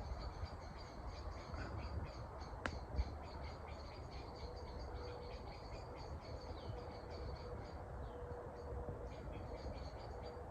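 Campfire crackling and hissing, with rapid small ticks throughout and one sharp pop about two and a half seconds in. A faint steady whistle-like tone joins about halfway through.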